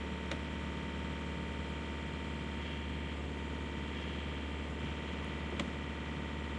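A steady mechanical drone with a low hum, unchanging throughout, with two short sharp clicks: one just after the start and one near the end.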